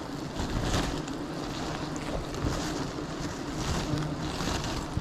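Wind buffeting the microphone, with rustling and handling noise as wasp comb is pulled from a nest in a tree hollow.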